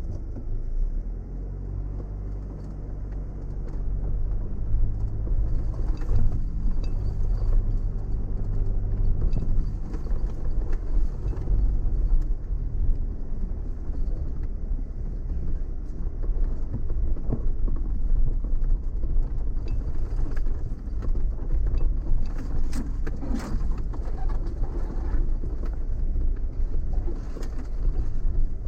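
Car driving slowly over a rough dirt track: a low, even engine hum at first, then a rough rumble of tyres and suspension with scattered knocks and rattles.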